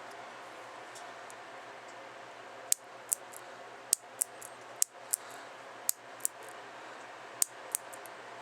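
Empty 2mm pinfire miniature revolver being cocked and dry-fired, making sharp small clicks in pairs. Five pairs come about a second apart, starting a little under three seconds in.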